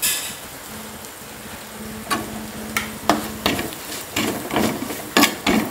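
Coriander powder tipped into hot oil in a clay pot gives a short sizzle. About two seconds in, a flat spatula begins scraping and stirring the spices against the clay pot in a run of quick strokes.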